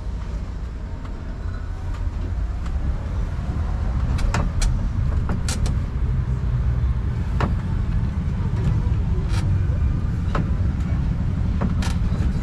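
Low, steady rumble of a rubber-tyred road tourist train rolling along the street, heard from aboard. It grows louder a few seconds in, with scattered sharp clicks and rattles every second or so.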